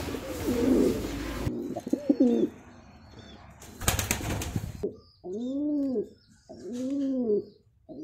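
Pigeon cooing: low rising-and-falling coos, with a short rustling burst about halfway through, then a run of evenly spaced single coos.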